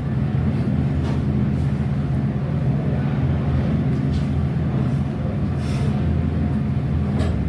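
A steady low rumble, with a few faint taps about four, six and seven seconds in.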